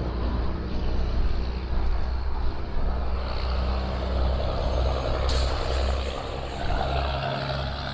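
Heavy road traffic, a truck's engine droning low and steady and swelling louder through the middle. A short sharp hiss cuts in about five seconds in.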